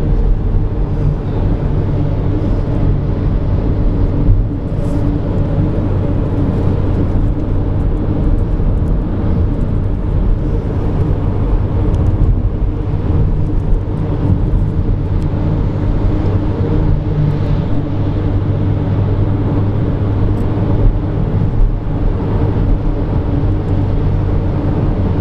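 Car driving at a steady speed, heard from inside the cabin: a constant drone of engine and tyre noise with a low hum.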